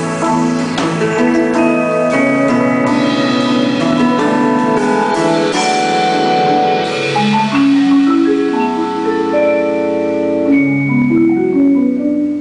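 Indoor percussion front ensemble playing: several marimbas and other mallet keyboards with a drum kit. A busy run of quick mallet notes gives way, about halfway through, to slower, longer held chords.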